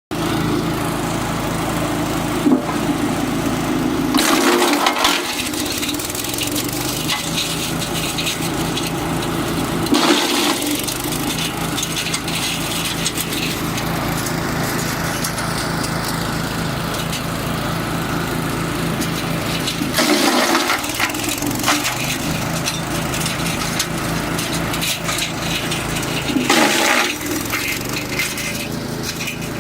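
Wood chipper driven by a 6.5 hp petrol engine running steadily, with four bursts of crunching and cracking as wood is fed in and chipped; the low engine note drops away briefly under each load.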